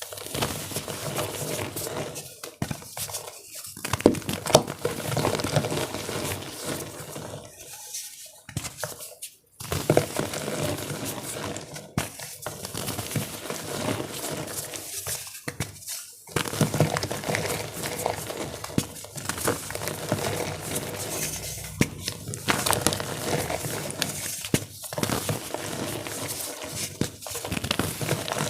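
Star-shaped gym chalk blocks being crushed in water, with a dense wet crumbling and crackling that pauses briefly twice.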